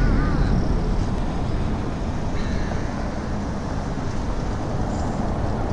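Steady outdoor city-square background noise with a deep low rumble, and a short high chirping call right at the start.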